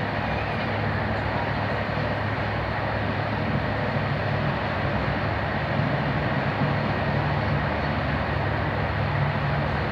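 Steady rumble and rush of a Corail passenger coach running along the line, heard from inside the carriage: wheels on rail and bogie noise with a low drone.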